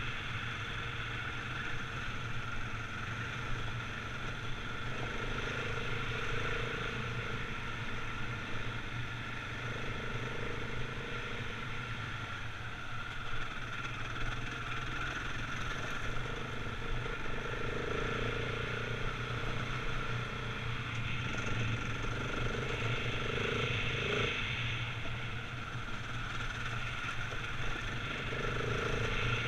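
Husqvarna 701 Enduro's single-cylinder four-stroke engine running steadily as the motorcycle rides along a gravel track, with an even rush of noise and small rises and falls in engine speed.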